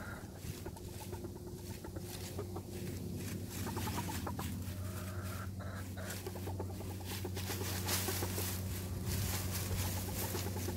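Chickens clucking softly while scratching and burrowing through a deep pile of dry oak leaves, with a steady crisp rustling and crackling of the leaves.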